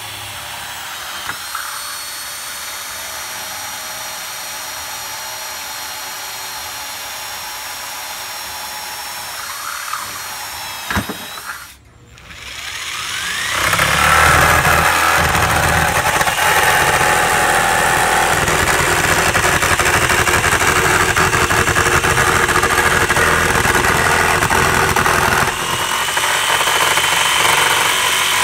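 A steady high-pitched power-tool whine for about the first ten seconds. After a brief drop, a jigsaw starts and runs loudly and evenly, cutting through a door panel along the marked outline of a doggie-door opening, with a short dip near the end.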